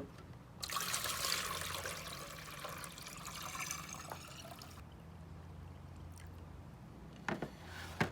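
Water pouring into an espresso machine's water reservoir, filling it with descaling solution up to the max line; the pour stops after about four seconds. Two short knocks follow near the end.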